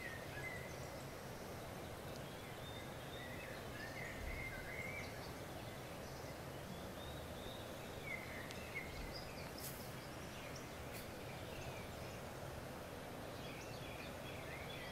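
Birds chirping on and off, in short rising and falling calls, over a steady low hiss of background noise, with a couple of faint clicks near the middle.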